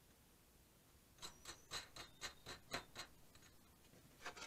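Faint light clicks and taps from hands handling galvanized sheet metal and small parts on a workbench: a quick run of about eight, roughly four a second, starting about a second in, then a couple more near the end.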